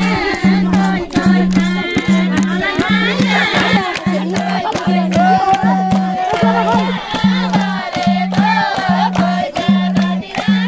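Nepali panche baja folk music played live: a low drum beat repeating about twice a second under a wavering, bending melody.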